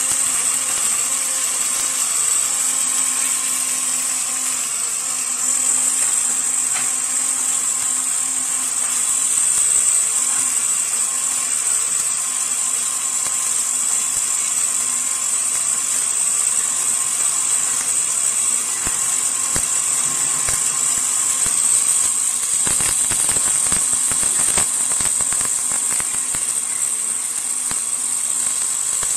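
Several welding arcs of an automatic multi-torch welding machine burning at once: a steady, high-pitched hiss and whine with scattered faint crackles.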